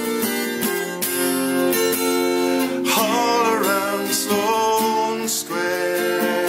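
Yamaha acoustic guitar with a capo, strummed and picked in a steady accompaniment, with a man's voice singing over it in places.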